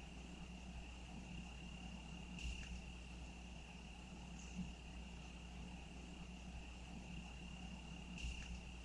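Crickets trilling steadily at one high pitch over a faint low background hum, with a few brief soft clicks.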